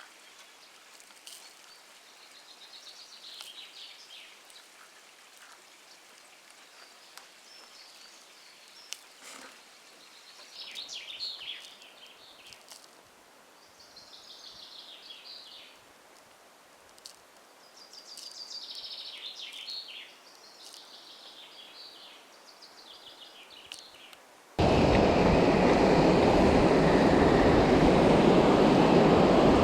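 Birds singing in short, repeated high phrases over a quiet background. About 25 seconds in, it cuts abruptly to a loud, steady rushing noise.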